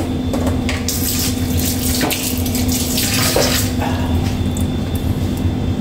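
Water running for about three seconds, over a steady low background hum.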